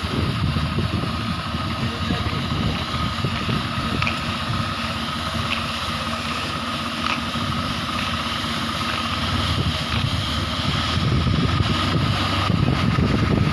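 Tractor engine running steadily while driving a hydraulic road broomer, with a thin steady whine above the engine's rumble.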